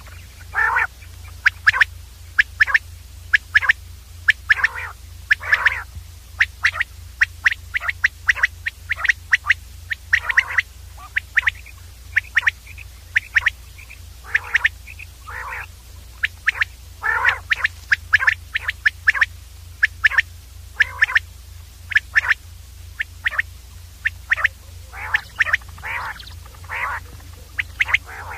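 Common quail calling over and over: many short, sharp notes, often in quick groups, mixed with some longer, lower calls. A steady low hum runs underneath.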